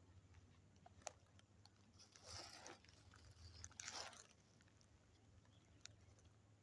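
Near silence, broken by a faint sharp click and then two soft crunching rustles, like movement through dry leaves or brush.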